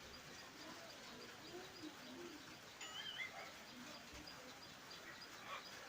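Birds calling faintly: a few low, curved coos in the first half and a short higher chirp about three seconds in.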